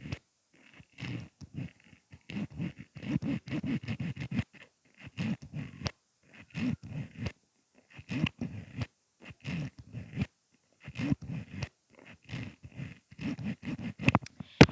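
Huda Beauty mascara wand pumped in and out of its tube close to the microphone: a run of short, wet, squishing pops coming in quick clusters with brief gaps between them.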